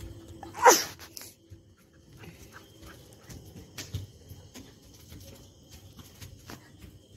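Golden retriever puppy gives one short, loud bark about half a second in. Lighter scuffs and taps of running feet and paws on concrete follow.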